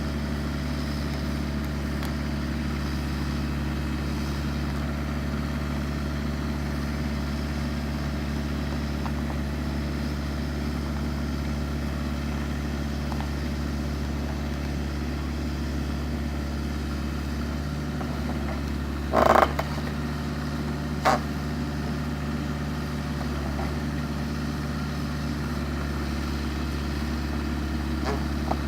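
Excavator's diesel engine running steadily, with two sharp knocks a couple of seconds apart about two-thirds of the way through, the first the louder.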